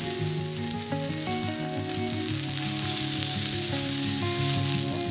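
A block of beef sizzling loudly as it sears on a hot griddle pan, browning the outside for roast beef; the sizzle swells in the second half. Background music plays under it.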